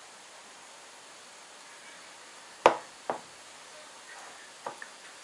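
Two sharp knocks about half a second apart, followed by two fainter taps near the end, over a steady hiss.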